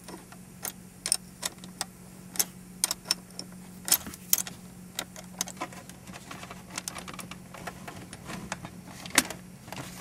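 Irregular small metal clicks and taps of a wrench working the adjuster nut on the parking brake cable rod at the lever, taking up the cable's free play.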